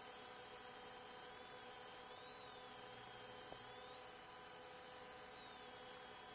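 Steady hiss and electrical hum from a dash-camera tape recording, with a faint high whistle that wavers in pitch, rising about four seconds in and falling back near the end. There is a single tiny click midway.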